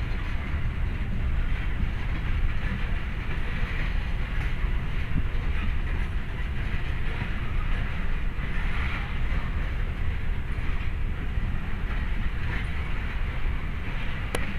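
Covered hopper cars of a Norfolk Southern grain train rolling past, a steady rumble and rattle of steel wheels on rail.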